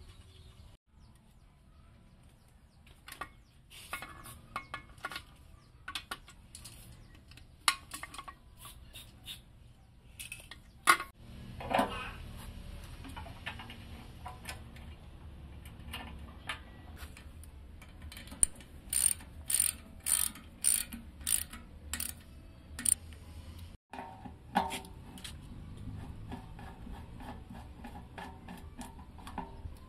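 Hand tools and steel engine parts clicking and clinking as the restored diesel engine's sheet-metal covers, fuel tank and fuel-tap fitting are put back on, scattered one at a time. About two-thirds through comes a quick run of sharp clicks, about two a second, like a ratchet wrench being worked.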